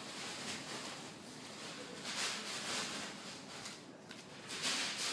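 Soft rustling and handling noises: a few brief swells of hiss without any pitch, about a second or two apart.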